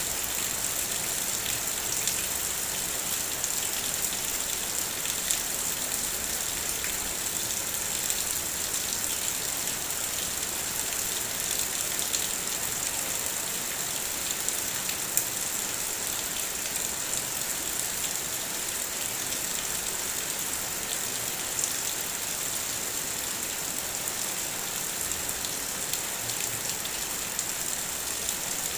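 Heavy rain falling on a car, a steady hiss with scattered sharper taps of single drops on the vehicle's surface.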